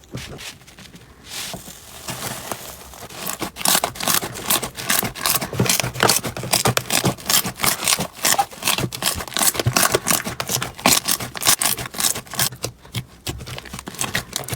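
Slime being squished and pressed by hand, giving a dense run of crackling, clicking pops. The pops are sparse at first, come thick and fast after a few seconds, then thin out near the end.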